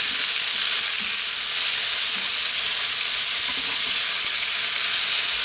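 Lamb strips, sliced onions, garlic and rosemary sizzling in hot oil in a nonstick wok, stirred with a wooden spatula. A steady, loud frying hiss, with a few faint knocks of the spatula against the pan.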